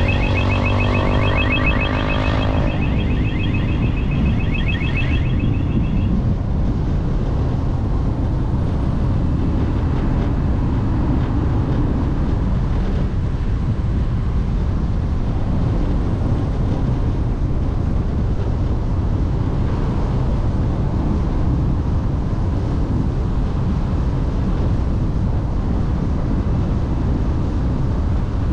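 A fast-warbling electronic alarm tone sounds for the first few seconds and then stops. Under it, and on through the rest, runs a steady low rumbling noise.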